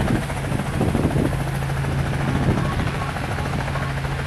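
Demolition derby car engine idling: a steady low drone.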